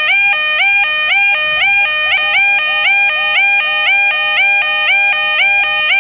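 Electronic level crossing alarm sounding continuously, a two-tone pattern of a lower tone stepping up to a higher one, repeating just under twice a second.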